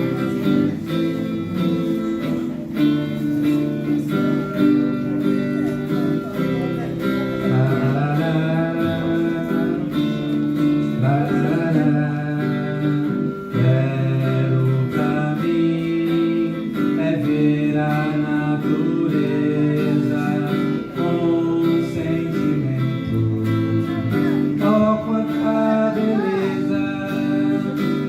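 Acoustic guitar playing the instrumental introduction to a song, strummed chords with a melody line wavering above them.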